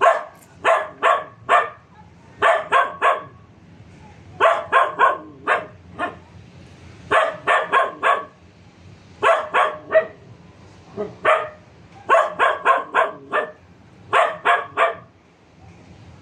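A dog barking in quick runs of three to five barks, with pauses of about a second between runs.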